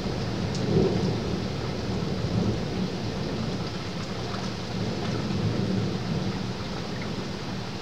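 Low rumble of distant thunder that slowly dies away, over a steady hiss of rain.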